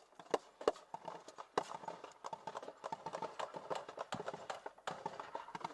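A rapid, irregular series of sharp cracks and knocks.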